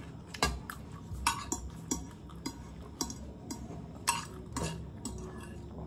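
Metal forks clinking and scraping on plates while chowmein is eaten: a string of light, irregular clicks.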